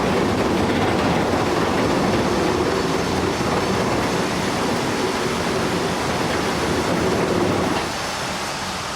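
Steady, noisy mechanical rumble of a large vehicle or machine, dropping slightly in level near the end.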